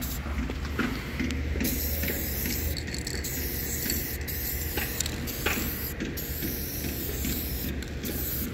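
Aerosol spray-paint can spraying a tag on a concrete wall: a loud hiss in strokes, broken by several short pauses between letters.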